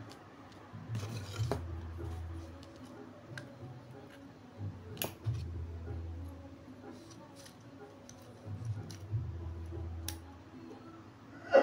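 A few sharp clicks and snips of small hand tools working on a switch-mode power supply board while a wire-strand fuse link is fitted in place of a blown glass fuse, over a faint low hum.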